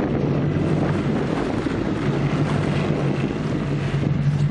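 Boat motor running steadily at a constant low hum, with wind buffeting the microphone.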